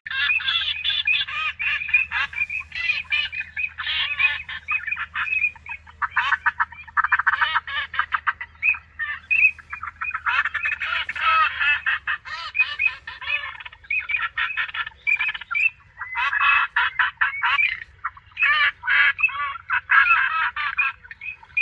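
A flock of ducks calling, with many short overlapping calls going on without a break.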